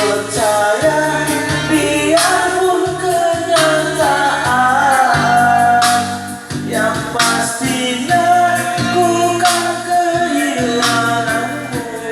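A song: a solo voice sings a melody with long held, wavering notes over a band with bass and sharp percussion hits.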